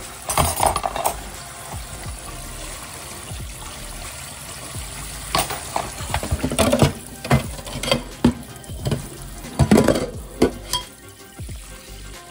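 Kitchen faucet spray hissing onto a china plate in a stainless steel sink, with dishes clinking and knocking against the sink, most of the knocks coming in a run through the second half.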